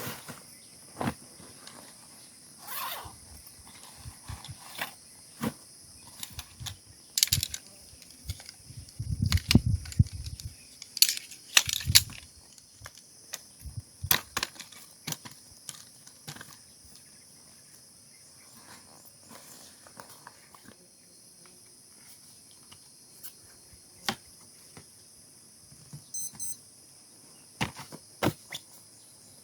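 Steady high-pitched insect chorus droning on in the forest, with scattered clicks, knocks and rustles, thickest in the first half, and a low thump about nine to ten seconds in.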